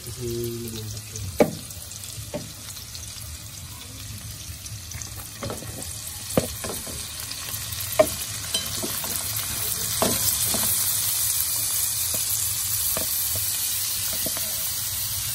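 Onion, garlic and pork sizzling in oil in a pan, stirred with a spatula that knocks against the pan now and then. The sizzling grows louder about ten seconds in, while shredded banana heart is stirred in.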